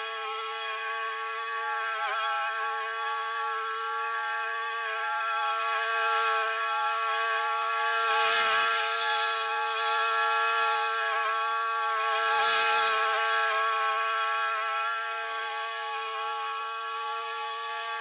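Scag walk-behind commercial mower running steadily while cutting tall grass, a constant engine and blade drone that grows louder as the mower passes close by in the middle, with two brief rushes of noise near the loudest point.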